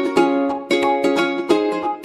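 Background music: a plucked-string tune struck in a steady rhythm, about two to three strokes a second.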